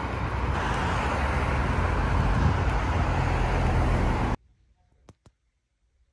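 Road traffic noise from cars passing on a busy multi-lane road, a steady rushing wash. It cuts off suddenly about four seconds in, leaving near silence with two faint clicks.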